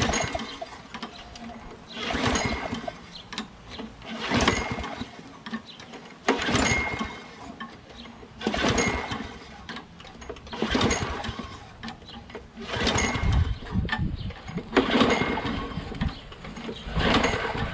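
Briggs & Stratton Quantum single-cylinder four-stroke mower engine being pull-started about nine times in a row, one pull every two seconds or so. Each pull spins the engine over with a whir, but it never fires or catches. The engine is not starting; the owner suspects the carburetor's emulsion tube is blocked and fuel from the primer is not reaching it.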